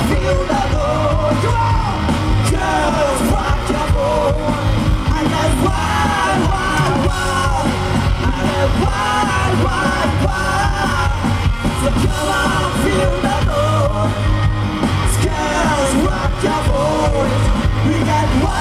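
Rock band playing live at full volume, with a male singer yelling the vocal line into the microphone over electric guitar.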